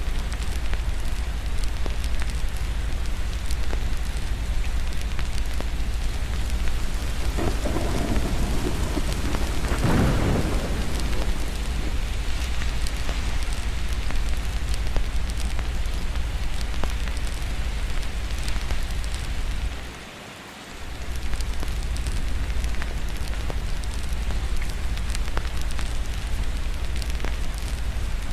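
Steady rain with a roll of thunder that swells and fades about eight to eleven seconds in, and thin crackles scattered through it. The whole sound drops away for about a second around twenty seconds in, then comes back.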